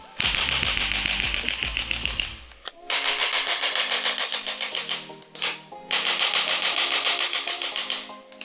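Handheld chiropractic adjusting instrument firing rapid runs of clicks, about ten a second, in three bursts of roughly two seconds each with short pauses between.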